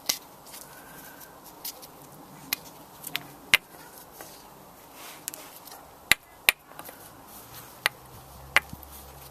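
Irregular sharp clicks and knocks, about ten in all, of metal compressor parts and tools being handled while the oil pump end of a Copeland refrigeration compressor is taken apart.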